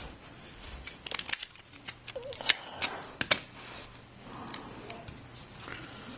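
Sharp clicks and light rustling from handling small repair parts and adhesive tape, with a cluster of several clicks in the middle.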